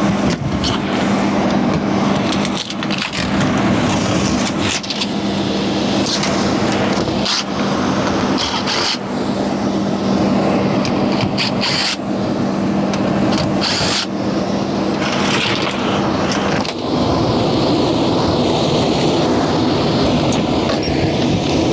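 Steady noise of a running HVAC system's air handler moving air, with a steady hum that cuts off suddenly about 17 seconds in. Scattered clicks and knocks from handling equipment are heard throughout.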